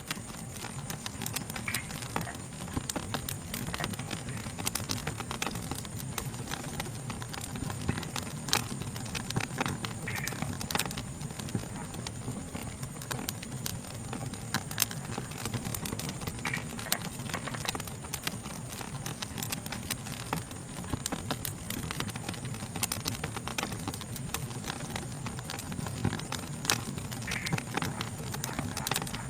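Wood fire crackling with frequent irregular sharp pops over a low steady rumble, with a steady high-pitched chorus of night insects throughout.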